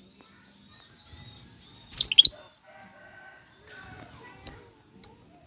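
Lovebirds chirping: a burst of shrill calls about two seconds in, then two short, sharp chirps near the end.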